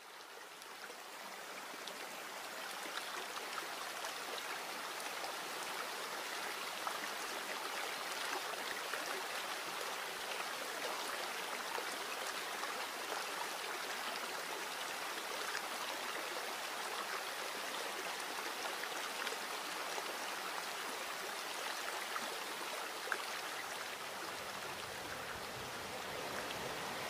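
Water of a shallow, rocky creek running over stones: a steady rushing and splashing that fades in over the first couple of seconds.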